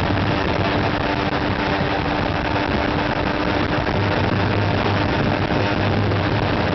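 Motorcycle engine running at a steady cruise on the open road, under loud, even wind rush on the microphone.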